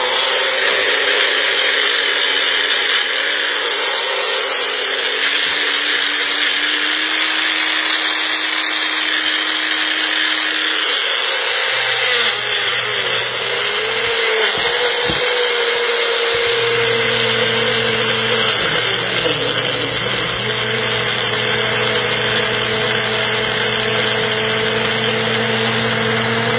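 Magic Bullet blender motor running steadily, blending soft fruit and juice into a smoothie. Its tone shifts a few times around the middle as the load changes.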